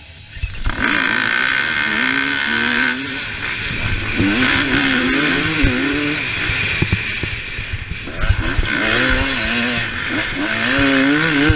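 Dirt bike engine pulling away hard about half a second in, then revving up and down repeatedly as the rider accelerates, shifts and backs off along a dirt track.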